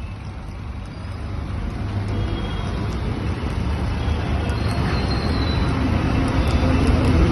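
Steady low rumble of a road vehicle running, heard from on board while following a buffalo cart, with road and traffic noise, growing gradually louder.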